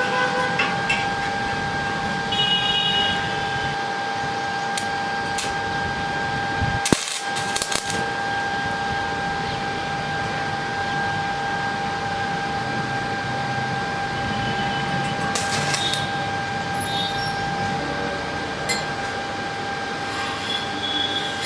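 Arc welding equipment running steadily: a constant whine over an even hiss. A single sharp click comes about seven seconds in.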